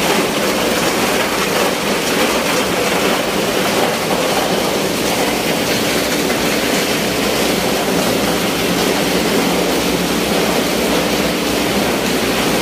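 Ice plant machinery running: a loud, steady mechanical noise with a rattle and a faint steady hum underneath.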